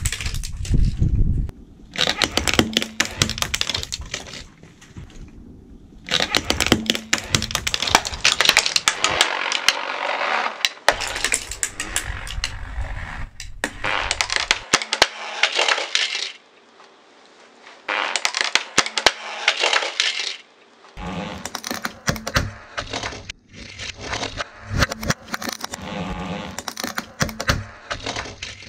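Toy model cars being crushed under a car tyre: bursts of crunching and sharp cracking as metal and plastic bodies break and snap, with dense clicking and short quieter pauses between passes.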